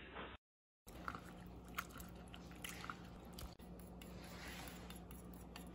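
Faint wet squishing and small clicks of bare hands squeezing raw sliced beef flank in a glass bowl, then swishing in a bowl of ginger-and-onion water, over a steady low hum.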